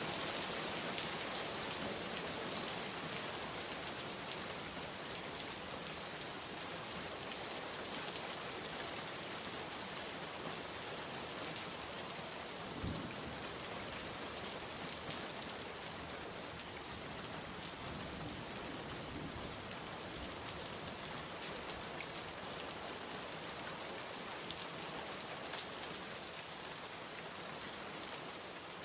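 Steady rain falling on a surface, a dense even hiss with scattered drop ticks.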